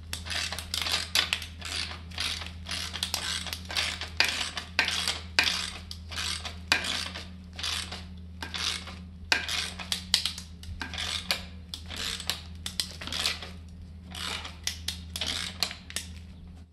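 Ratchet wrench clicking in quick, repeated strokes as it turns the forcing screw of a MacPherson strut spring compressor, compressing a front strut's coil spring to take its load off the top mount.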